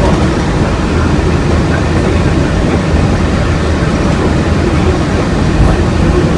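Walt Disney World monorail running, heard from inside the car: a steady, loud rumble of the train in motion.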